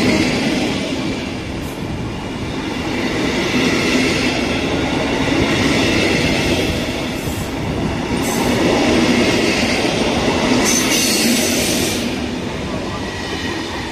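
Passenger train coaches rolling past close by as the train pulls out: a steady loud rumble of wheels on rail, with faint high wheel squeal and a few short high hissing bursts, the longest about three-quarters of the way through.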